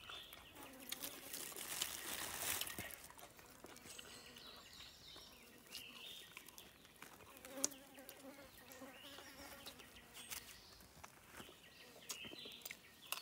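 Faint buzzing of a fly hovering around the food, coming close twice, a wavering hum that swells and fades.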